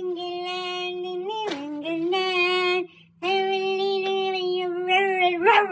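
A child's voice singing long held notes, with a short break about three seconds in and the pitch wavering up and down near the end.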